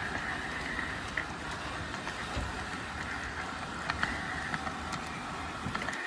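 G gauge model train running along its track, heard from on board: a steady motor and wheel hum with a constant high whine and occasional short clicks.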